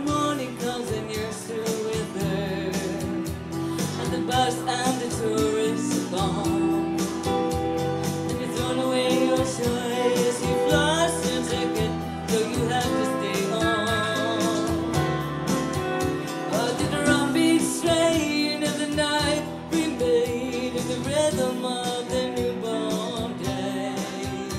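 Live music from a duo: a woman singing over two guitars, one of them a solid-body electric guitar.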